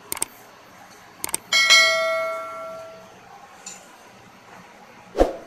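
Subscribe-button sound effect: two pairs of mouse clicks, then a notification bell rings once and fades away over about a second and a half.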